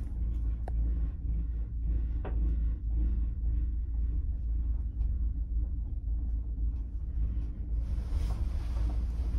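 Steady low rumble of a ride in a cable-car gondola climbing the mountain, with a few faint clicks early and a hiss joining near the end.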